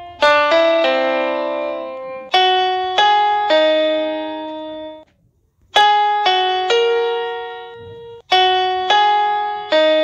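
Background music: a keyboard melody of struck notes in short groups, each ringing and fading, with brief pauses about five seconds in and again near eight seconds.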